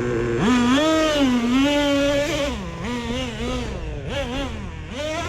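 Traxxas T-Maxx nitro RC truck engine revving: it jumps to high revs about half a second in and holds there for about two seconds, then is blipped up and down over and over as the truck is driven.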